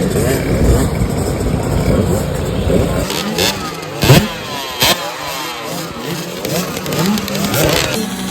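Several dirt bike engines revving on a motocross track, their pitches rising and falling and crossing as the riders work the throttles and shift. There are two sharp thumps near the middle.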